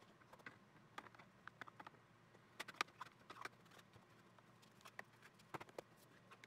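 Scattered light clicks and wooden knocks at irregular intervals as a stacked plywood box and its lid are handled, lifted and set back on a plywood workbench, the loudest knock a little under three seconds in.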